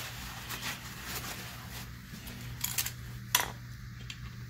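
Handling noises at an outboard lower unit: a paper towel rustling as it wipes the propeller shaft and a few small clicks of a hand tool, the loudest a single sharp click a little past the middle, over a steady low hum.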